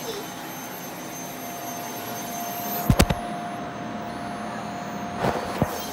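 Vacuum cleaner running on carpet, a steady motor noise with a thin whine, broken by sharp knocks: three in quick succession about halfway through and two more near the end.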